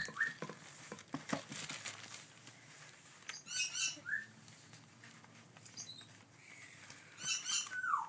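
African grey parrot chicks giving high, squeaky begging calls in short bursts, once in the middle and again near the end, with a few single chirps, as they are hand-fed. Light ticking and scratching sounds come in between.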